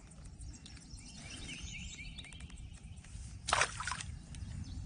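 A fishing reel's drag buzzing briefly as line is pulled off against it, about three and a half seconds in: the drag is set too light.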